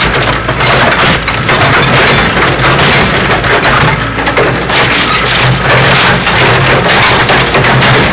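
Backhoe bucket crushing a car body: loud, continuous crunching and crackling as the metal and parts give way, with the backhoe's engine running underneath.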